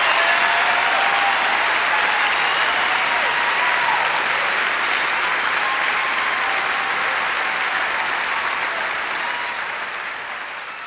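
Audience applauding at the end of a song, with a few voices calling out over the clapping, fading out near the end.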